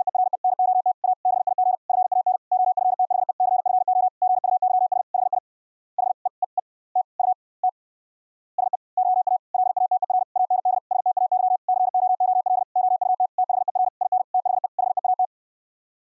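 High-speed Morse code (QRQ CW) sent as an audio tone of about 700 Hz, keyed on and off in rapid dits and dahs. A long fast run thins to a few scattered elements and a pause of about a second partway through, then another long run that stops shortly before the end.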